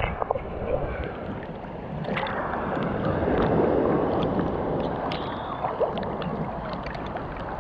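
Ocean surf sloshing and washing around a camera held at the water's surface, a rushing sound that swells about two seconds in, peaks and then eases off, with small splashes and clicks.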